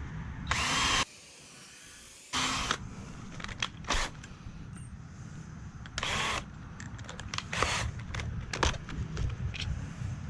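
Cordless drill driving screws into 2x4 lumber in four short bursts, with scattered clicks and knocks of handling between them.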